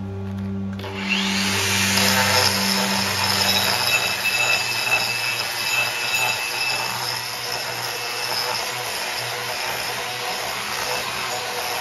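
Angle grinder with a flared cup grinding wheel grinding down hardfacing weld on a steel anvil face to flatten it. It starts about a second in and runs on steadily. Background music continues under it for the first few seconds, then ends.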